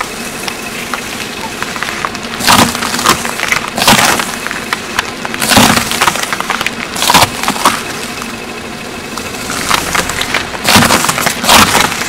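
Green apples being crushed under a slowly rolling car tyre on asphalt: a string of loud, sharp cracking crunches as the fruit splits and bursts, some coming close together.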